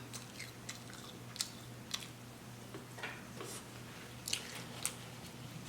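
A person chewing food close to the microphone: scattered soft, wet mouth clicks and smacks at irregular intervals.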